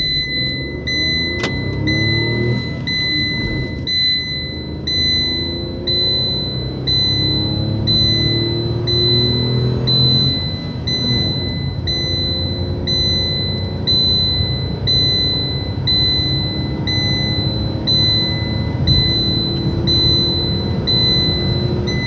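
Tata Nexon's 1.2-litre turbo-petrol three-cylinder engine under full-throttle acceleration from standstill, heard from inside the cabin. It climbs in pitch through the gears, with upshifts about four and ten seconds in. A short high beep repeats about once a second throughout.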